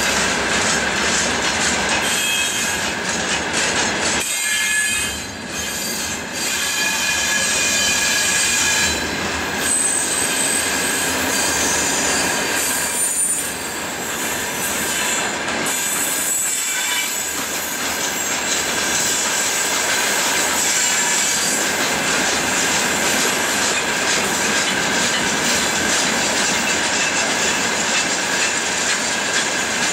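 Open freight gondola wagons of a long freight train rolling past, their wheels squealing over the rails in a steady high tone over the rolling rumble, with shifting higher squeals in the first half.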